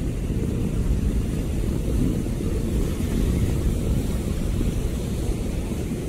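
Wind buffeting the microphone in a steady low rumble, over the wash of rough surf.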